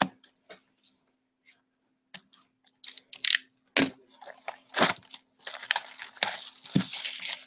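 Plastic shrink-wrap on a hockey card box being slit with a box cutter and torn off: a sharp click at the start, then scattered crackles, and a dense crinkling and tearing of the plastic over the last two seconds.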